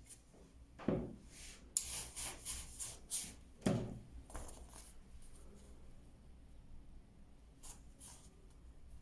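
Hands handling and smoothing silk fabric on a guide board: a soft thump about a second in, a run of short rustling swishes, a second thump near four seconds, then only faint rustles and a couple of light ticks.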